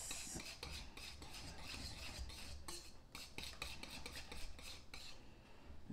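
Wire whisk beating thick barbecue sauce and grape jelly in a glass mixing bowl: a fast, faint run of scraping clicks as the wires strike the bowl.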